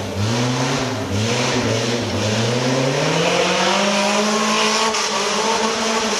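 Off-road competition vehicle's engine revving: three short blips in the first couple of seconds, then a steady climb in pitch to high revs that it holds to the end.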